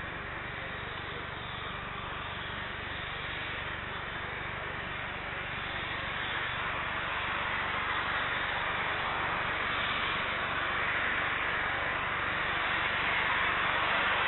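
Jet airliner engines running on the ground: a steady rushing noise that grows gradually louder.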